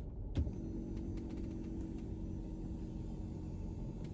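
Car engine idling, a low steady rumble and hum heard inside the cabin, with one soft knock just after the start.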